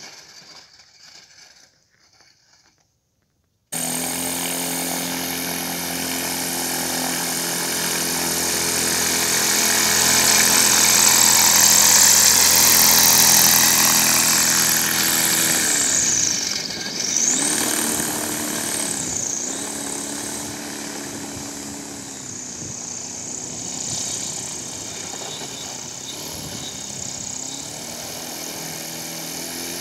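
Electric motor and propeller of a homemade air sled running, a steady whine with a strong rush of air, starting abruptly about four seconds in after a moment of silence. About halfway through the pitch drops and rises again twice as the power is eased off and brought back, then it runs on steady at a lower pitch.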